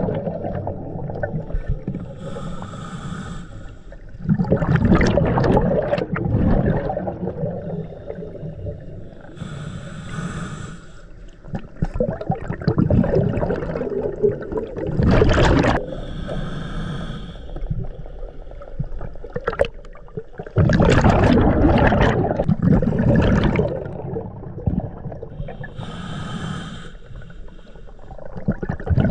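Scuba diver breathing through a regulator underwater, recorded through the camera's underwater housing. Four short hissing inhales, each followed by a longer rush of exhaled bubbles, in a cycle every several seconds.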